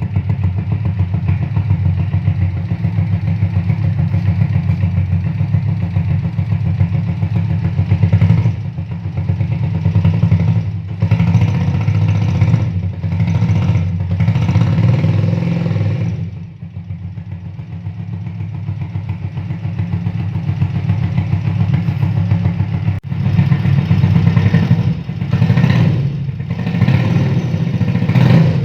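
Motorcycle engine running through a homemade 'turbo' exhaust, idling steadily at first and then revved in a series of throttle blips. It drops back to a quieter idle about two-thirds of the way through before revving again.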